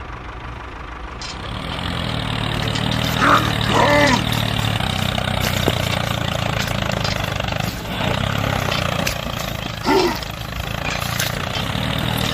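Engine running steadily, a low even hum that gets louder about a second and a half in. Brief high voice exclamations sound over it around three to four seconds in and again near ten seconds.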